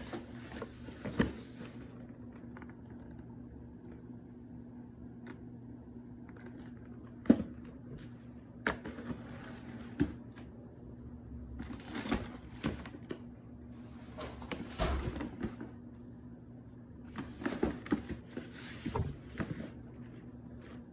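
Unboxing handling of a cardboard sneaker box and its paper packing: scattered knocks and taps, with the loudest sharp knock about seven seconds in, and three bursts of paper rustling, near the start, about twelve seconds in and near the end, over a steady low electrical hum.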